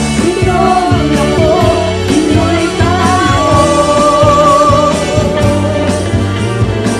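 Pop-rock band music with a singer, backed by bass guitar, keyboard and cajon; about three seconds in the voice holds one long note with vibrato.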